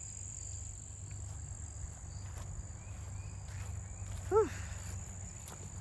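Insects trilling steadily in a high, even drone over a low steady rumble, with faint footsteps on a trail. About four seconds in, a person breathes out a loud 'whew'.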